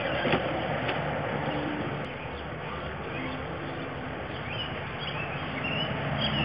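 Steady outdoor background hiss, with a few short, faint bird chirps in the last couple of seconds.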